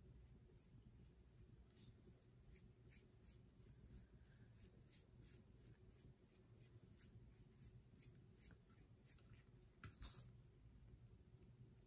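Faint, repeated scratchy strokes of a small brush dragging wet alcohol ink across a metal tray, with one sharper tap about ten seconds in.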